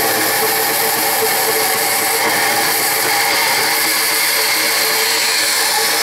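Bandsaw running steadily, its blade sawing through thin-wall tubing held in a vise.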